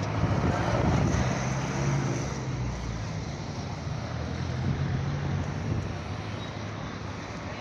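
Street traffic: a car engine running close by, loudest in the first two seconds and then easing off, with wind on the microphone.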